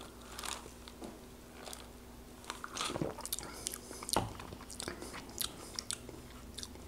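Close-miked mouth sounds of someone sipping iced cola and tasting it: scattered small wet clicks, smacks and crackles, with a sharper click about four seconds in.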